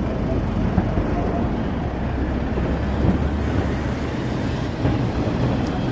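Double-decker bus engine running as the bus turns past close by: a steady low rumble with traffic noise.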